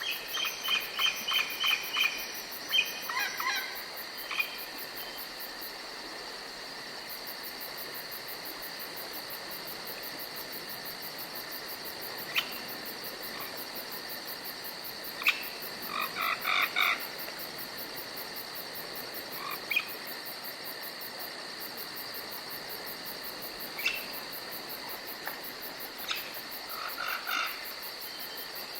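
Forest ambience of crickets or other insects trilling steadily. Over it come scattered short calls: a quick run of repeated chirps in the first few seconds, brief clusters around the middle and near the end, and a few single sharp clicks.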